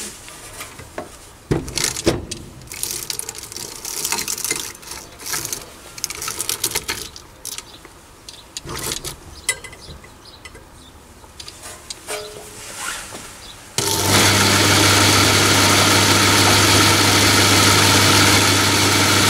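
Clicks and knocks of hands handling a segmented link belt and the motor's tensioning lever on a mini lathe's belt drive. About 14 seconds in, the electric motor switches on and drives the lathe spindle through the belt pulleys, running with a steady hum and whir.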